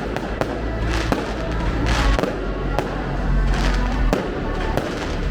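Fireworks going off in a rapid string of bangs, with two longer spells of crackling, over loud music.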